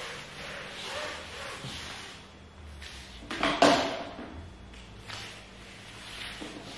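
Wet string mop swishing in repeated strokes across a rubber floor mat. About three and a half seconds in, a mop bucket is grabbed by its handle with a sharp clattering knock, the loudest sound.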